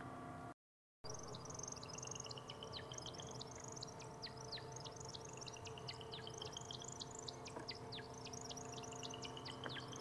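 A night chorus of calling animals: rising pulsed trills about a second long, repeated every two to three seconds and overlapping one another, over many quick downward-sweeping chirps, with a steady low hum beneath. The sound drops out completely for half a second about half a second in.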